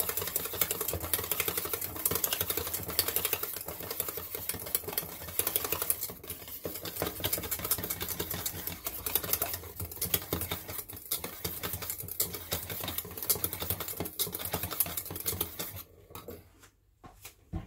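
Whisk beating rapidly against a bowl while mixing the balsamic sauce: a fast, dense clicking that stops abruptly near the end.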